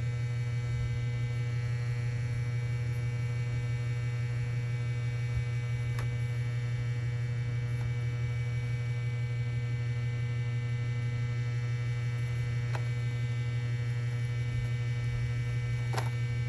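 Steady low hum, with three faint clicks spread through it.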